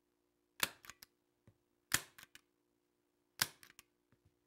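Hand staple gun fired three times, about a second and a half apart, each a sharp snap followed by a short rattle of smaller clicks, stapling felt down.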